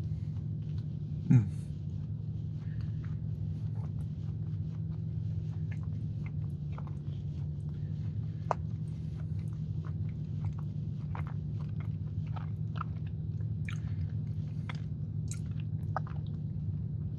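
Close-up chewing of a chilled, iced sugar cookie: small irregular mouth clicks over a steady low hum, with one brief louder sound falling in pitch about a second in.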